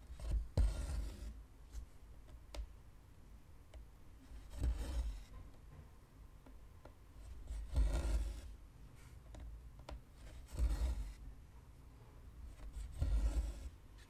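Cotton embroidery thread pulled through cross-stitch fabric held in a hoop: five short rasping pulls about every three seconds, with a few light ticks between them.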